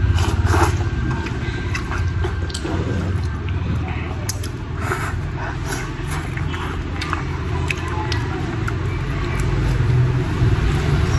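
A man eating rice noodles with chopsticks, slurping and chewing, with scattered small clicks and smacks over a steady low rumble.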